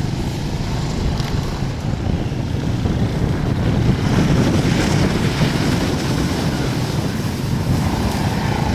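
Polaris 850 XP ATV engine running under way, with wind buffeting the microphone; it grows a little louder about halfway through.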